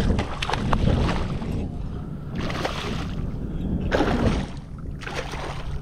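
Water sloshing and splashing around a kayak in several separate bursts, with wind rumbling on the microphone.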